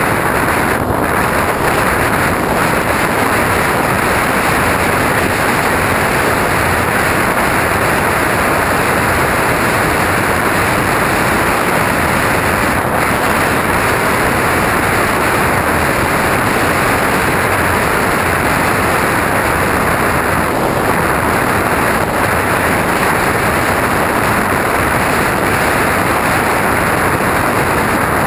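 Steady, loud rushing noise of air streaming past a GoPro camera carried aboard a radio-controlled aircraft in flight, with no distinct tones or breaks.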